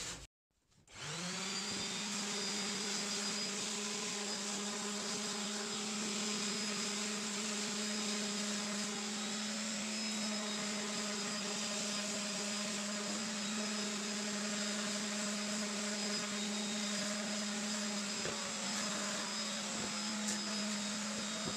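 Random orbital sander starting up about a second in, then running steadily with a constant hum as it sands a wooden board to round over its edges and smooth it.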